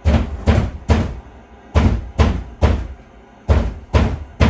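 Loud, heavy knocks on a wall, three at a time about half a second apart, repeated three times with short pauses between, breaking into faster banging at the very end.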